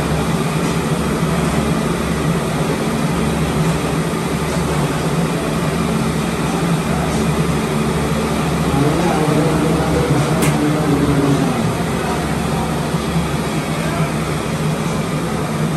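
A large batch of potato fries deep-frying in a gas-fired commercial fryer: a steady, dense sizzle of bubbling oil over a low machine hum, with one sharp click about ten seconds in.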